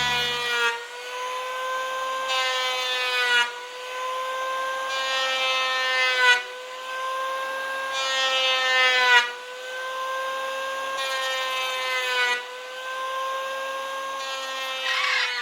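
A power tool's motor whining at a steady pitch, with a louder surge about every three seconds that repeats six times.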